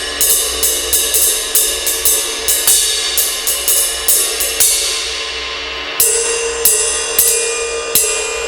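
Zildjian K Custom ride cymbal played with a drumstick in a steady ride pattern, about three strokes a second, each one ringing on into the next. About six seconds in the strokes slow to single hits with a changed tone.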